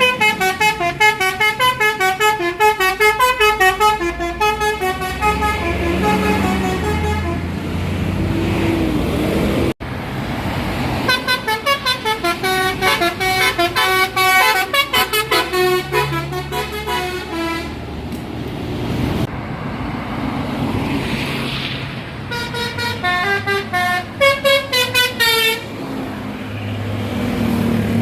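Bus telolet multi-tone air horns playing fast melodic runs of short notes in several bouts, with a bus engine running between them.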